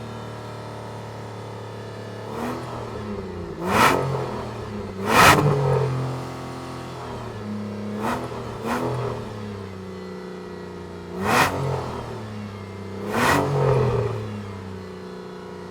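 Aston Martin engine idling steadily, blipped with the throttle about seven times: each rev rises sharply and falls back to idle, the loudest about five seconds in.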